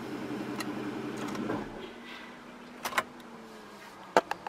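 2015 Aston Martin Vanquish's V12 idling, then switched off at the start/stop button: the engine note cuts out about a second and a half in. A faint, slowly falling hum and a few sharp clicks follow.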